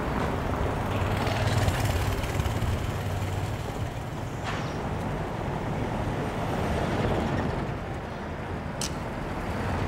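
Street traffic: cars and pickup trucks driving past with a low engine rumble, swelling slightly about two seconds in. A short sharp click near the end.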